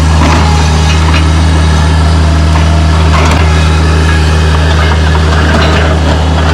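Truck engine idling steadily, with scattered clatter and knocks over it.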